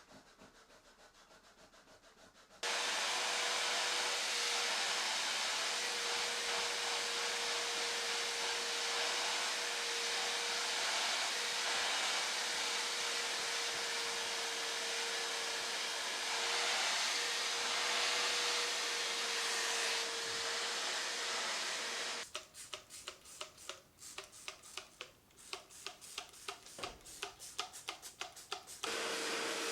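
Bissell SpotClean ProHeat portable wet carpet-and-upholstery cleaner running, its suction motor making a steady whooshing hum. It starts about three seconds in. Near the end the sound breaks into rapid choppy pulses for several seconds, then goes steady again.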